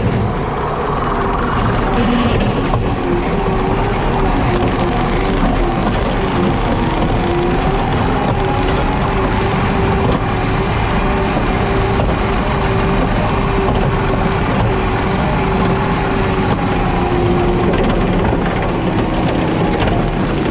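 JCB teleskid skid steer's diesel engine running steadily while powering a 7-foot Jenkins bush hog mower, with a steady held tone over the engine noise.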